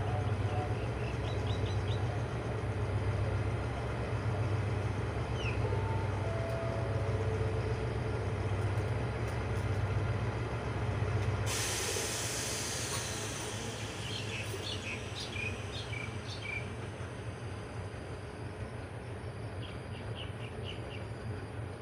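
Diesel locomotive of a standing passenger train running at idle with a pulsing low hum. About halfway through, a sudden loud hiss of air breaks out and fades away over several seconds, and the engine hum drops lower.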